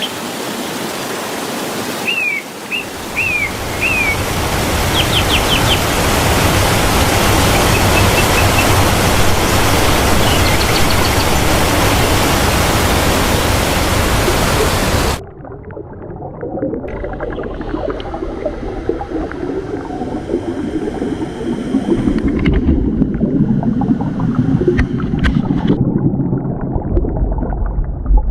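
Waterfall with a steady roar, and birds chirping over it several times in the first few seconds. About halfway through, the sound cuts off abruptly to a muffled, low rumble.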